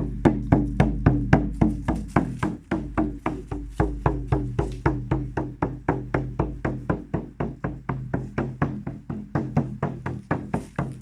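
Music of steady, even drumming, about four beats a second, over a low sustained drone.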